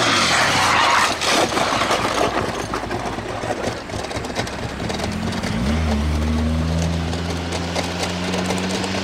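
A crashed sport motorcycle sliding across the track, a loud scraping noise with scattered knocks for the first two or three seconds. From about six seconds in, an engine idles steadily with a low hum, after a brief rise in pitch.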